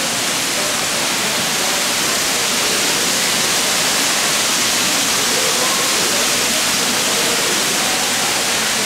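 Bell-jet water fountain, its many dome-shaped water films pouring steadily into the pool: a loud, even rush of splashing water.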